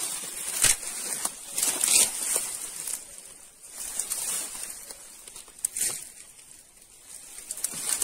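Dry brush and leaf litter rustling and crackling in irregular bursts as a person handles dry branches and steps about, with a few sharp twig snaps.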